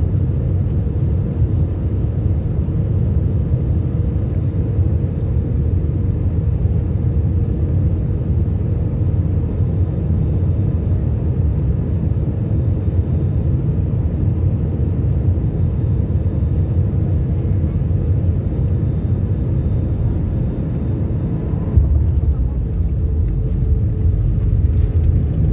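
Airliner cabin noise on landing approach: steady low rumble of the turbofan engines and airflow heard from a window seat over the wing. About 22 seconds in the rumble turns rougher and a little louder as the wheels come onto the runway.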